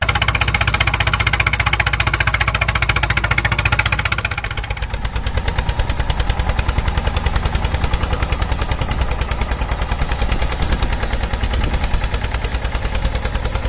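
A vehicle engine running with a fast, even chugging pulse and a strong low rumble. It cuts in abruptly at the start and shifts slightly in tone about four and a half seconds in.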